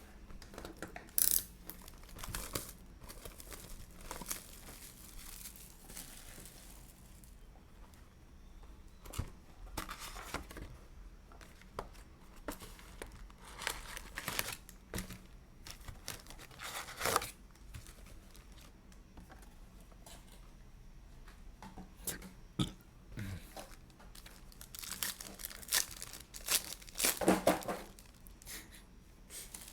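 Plastic wrapping on a box of basketball trading cards being torn and crinkled in short, irregular bursts as the box and its packs are opened.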